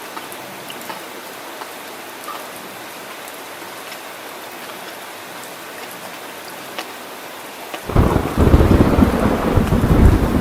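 Steady rain hissing with scattered drop ticks. About eight seconds in, thunder breaks in suddenly as a loud, deep rumble that keeps rolling.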